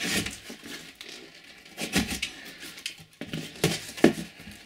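Cardboard shipping box being opened: packing tape slit with a utility knife and the flaps pulled back, with cardboard crackling and scraping and several sharp knocks, the loudest one near the end.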